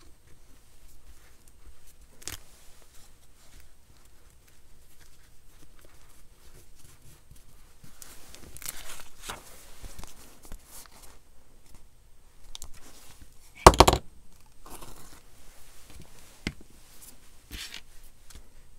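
Hands rustling paper and muslin fabric pieces on a craft table, with one short, loud tear about two-thirds of the way through.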